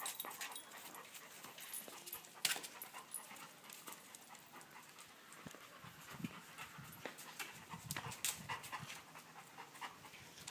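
Dogs panting softly, with scattered faint clicks and rustles.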